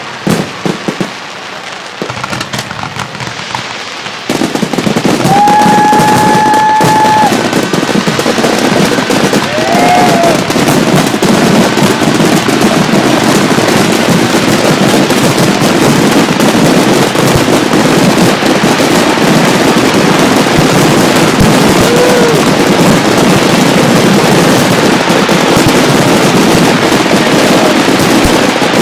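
Fireworks finale: a few separate bangs, then about four seconds in, a dense, continuous barrage of bangs and crackling that stays loud to the end. A few brief whistles sound over the barrage.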